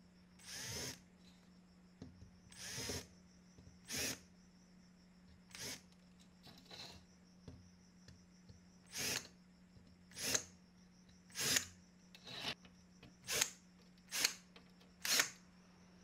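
Cordless drill run in about a dozen short bursts as it bores small holes in the black plastic barrel plate of an IBM Model M keyboard. The first two bursts are longer and start with a rising motor whine; the rest come quicker and shorter toward the end.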